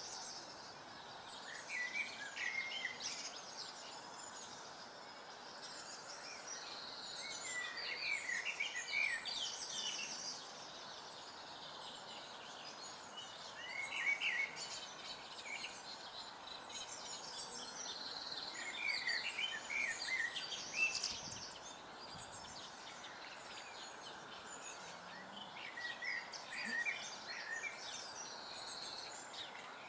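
Songbirds singing: one bird repeats a short phrase about every five or six seconds, with higher chirps from other birds in between, over a steady background hiss.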